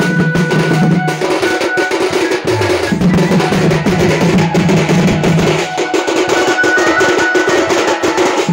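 Folk dance music: a band of two-headed barrel drums (dhol) beating a fast, driving rhythm with clashing metal cymbals, a few held melody notes over it.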